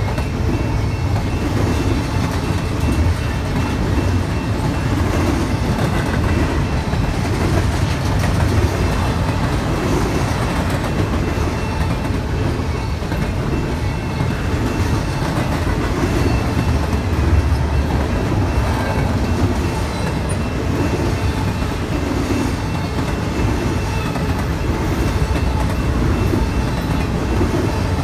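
BNSF double-stack intermodal train passing close by: a steady, loud rumble of the container well cars' steel wheels rolling on the rails.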